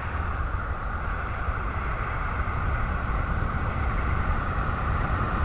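Steady rushing, wind-like noise with a deep rumble beneath it, with no tune or voice.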